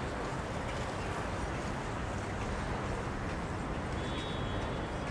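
Steady city ambience: a continuous hum of distant traffic and the murmur of people, with a brief high thin tone about four seconds in.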